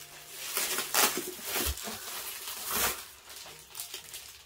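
Plastic bubble-wrap packaging rustling and crinkling as an eyeshadow palette is pulled out of it, in a few short crackles, the loudest about a second in and near three seconds.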